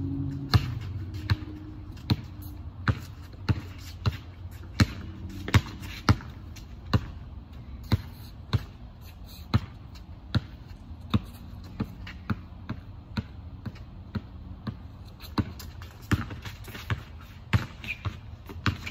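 Basketball dribbled on a hard outdoor court: a steady bounce about every two-thirds of a second, slightly quicker near the end.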